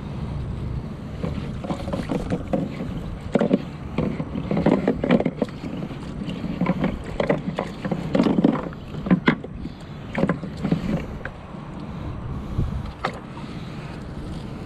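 A wet cast net being handled and thrown: irregular rustling, dripping and splashing water, heaviest in the middle, with a few sharp clicks, over a steady low rumble.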